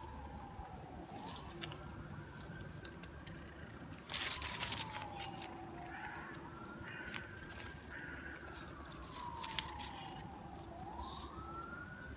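Emergency vehicle siren wailing faintly, its pitch rising and falling slowly in cycles of about five seconds. A short rustling burst about four seconds in.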